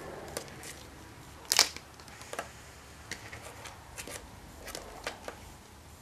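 Hand wire stripper working on the ends of small insulated wires, stripping off about an eighth of an inch of insulation: a string of sharp clicks and snaps from the tool's jaws, the loudest about one and a half seconds in.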